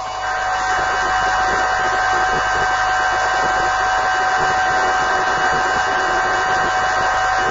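Steady loud hiss with a constant high whine running through it, unchanging throughout.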